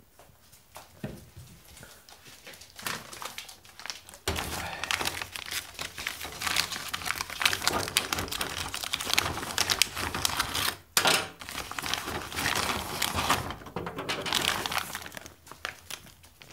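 Plastic bag of dried reindeer rib dog treats crinkling and rustling as it is handled and opened. The rustling starts about four seconds in, breaks off briefly, and dies down near the end.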